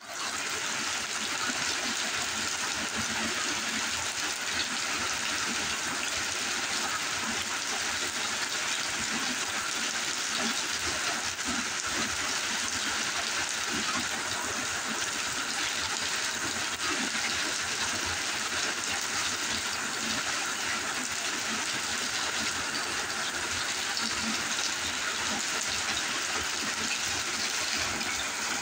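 Heavy rain pouring down steadily onto a flooded yard and puddles: an even, continuous hiss that does not let up.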